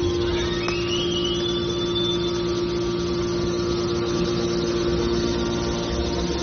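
Scrap car baler running with a steady hum carrying one strong constant tone, with a short rising squeal in the first two seconds.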